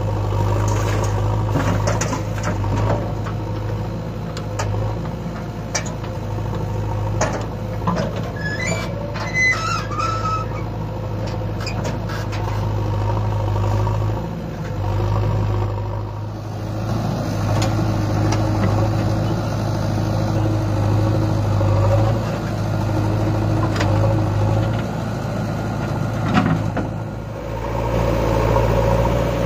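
Tractor diesel engine running steadily, with scattered knocks and clanks and a few brief high squeaks about nine to ten seconds in.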